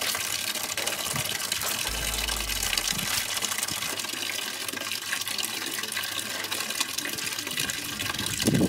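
Water running steadily from an outdoor wall tap into a plastic tub, with small splashes of clothes being scrubbed by hand in a bucket of water.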